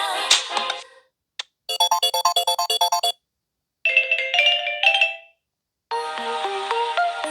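Samsung Galaxy Wide3 ringtones played one after another. One electronic tune fades out in the first second. Then comes a rapid pulsing tone of about ten beeps a second, a short chime phrase of a few notes, and a new synthesized melody starting near six seconds in.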